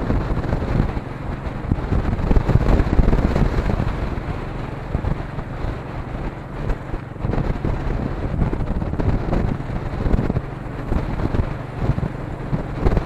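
Wind buffeting an action camera's built-in microphone while riding a Royal Enfield Meteor 350 motorcycle, with the single-cylinder engine running steadily underneath.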